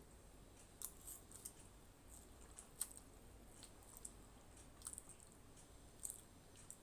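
Faint, close-miked chewing of Maggi masala instant noodles, with scattered sharp wet mouth clicks, the loudest about three seconds in.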